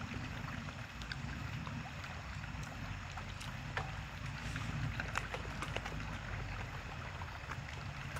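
A steady low rumble of wind on the microphone, with scattered small clicks and mouth sounds from two people eating with chopsticks and spoons out of plastic takeaway trays.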